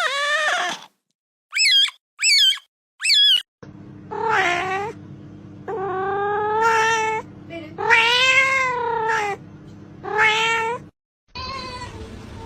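Cats meowing in several short clips: a falling meow, three quick high wavering chirps, then four drawn-out meows over a steady low hum, the middle two the longest.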